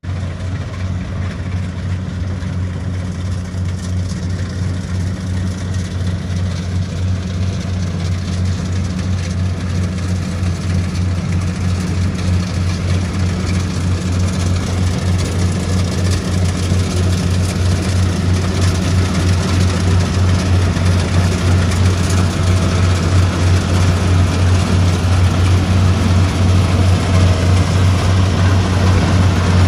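Diesel engine of a tracked rice combine harvester running steadily as it cuts, a low, even hum that grows gradually louder as the machine comes closer.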